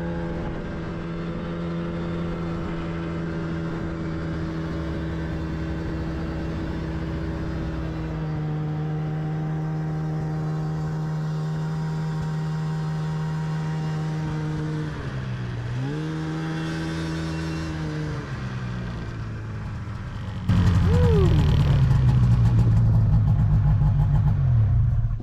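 Snowmobile engine running steadily, its pitch dipping briefly and recovering about two thirds of the way in. Near the end it gets much louder and rougher as it revs up.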